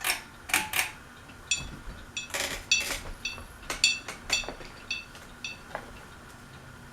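Ceiling fan pull chain swinging and clinking against the glass of the light kit, each hit ringing briefly; the clinks come irregularly and die away after about six seconds.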